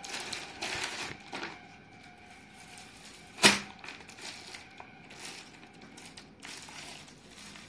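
Rustling and handling noises as a cloth suit is unfolded and shown, with a single sharp knock about three and a half seconds in.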